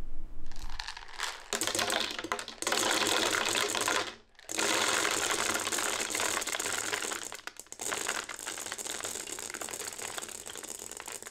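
Dry dog kibble pouring into a plastic pumpkin-shaped jar: a dense rattling patter of pellets hitting the plastic and each other, with two short breaks in the pour.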